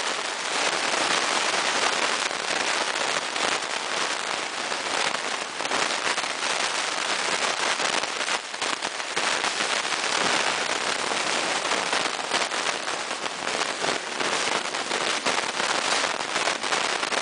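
Dense, steady crackling hiss: interference from a faulty recording microphone. The MAN Lions City Hybrid bus, running on electric power with its diesel engine off, is all but inaudible under it.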